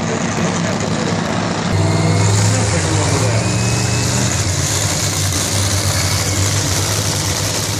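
Nitro-burning supercharged V8 of an NHRA Top Fuel Funny Car idling, a loud, steady low rumble that gets a little louder about two seconds in.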